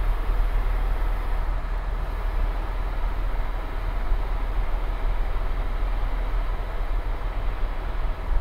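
Cockpit noise of an EC130 T2 helicopter in cruise flight: its main rotor and Arriel 2D turboshaft make a steady deep rumble with a hiss on top.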